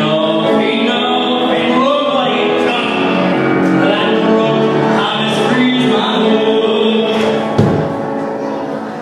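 Amplified singing into a microphone over backing music. A single thump comes about three-quarters of the way through, after which the music thins out and fades as the song ends.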